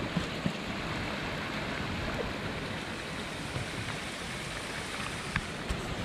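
Small mountain brook running over stones, a steady rushing of water, with a few faint ticks.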